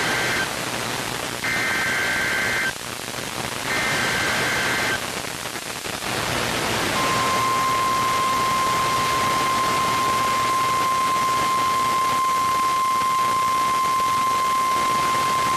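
NOAA Weather Radio emergency alert signal. Three short bursts of warbling two-tone SAME header data, about a second apart, are followed after a pause by the steady 1050 Hz warning alarm tone for about nine seconds, all over radio static. The sequence marks the start of a new alert message.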